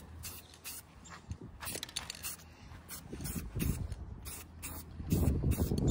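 Aerosol spray paint can hissing in short, evenly spaced bursts, about two to three a second, as black paint goes on in a light coat. Near the end a loud low rumble of wind on the microphone comes in.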